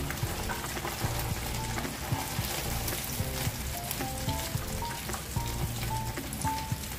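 Hot oil sizzling steadily as corn tikkis deep-fry in a kadai, with scattered light clicks of a metal slotted spatula in the pan. A soft background tune plays over it.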